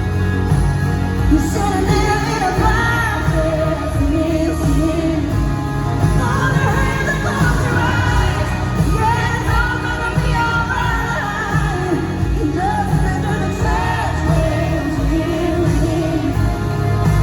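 A woman singing lead over a full live band with heavy bass and drums, a loud concert performance of a country-pop song.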